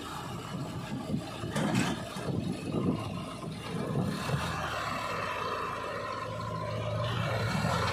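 Diesel engines of a Sonalika tractor and a JCB 3DX backhoe loader running under load. The engines surge unevenly in the first few seconds, then settle into a steadier drone.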